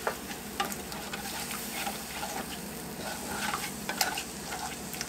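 A spatula stirring and scraping milk gravy (a light flour roux thinned with milk) around a skillet to work out the lumps, over a steady low sizzle from the pan on the burner, with a few light clicks of the spatula against the pan.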